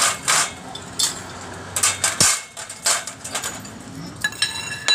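Steel motorcycle fork parts, a long threaded rod and fork springs, knocking and clanking in a stainless steel basin: several sharp metal knocks, then about four seconds in a clang that rings on briefly.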